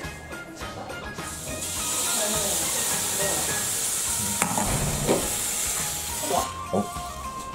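Egg and tapioca-starch batter sizzling as a ladleful hits a hot, unoiled stainless pan. The hiss starts about a second in and stops suddenly about six seconds in, with a few light knocks of the ladle along the way.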